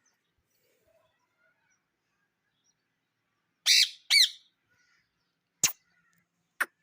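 A parrot gives two loud, harsh squawks in quick succession a little past the middle, followed by two short sharp clicks.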